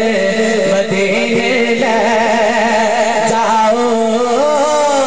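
A man singing a naat, an Urdu devotional poem, in long held notes that waver in quick ornaments from about two seconds in, over a steady unchanging drone.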